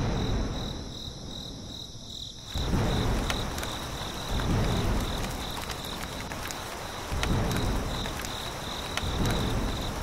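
Crickets chirping in a steady, high, pulsing chorus, over a low rushing noise that swells several times.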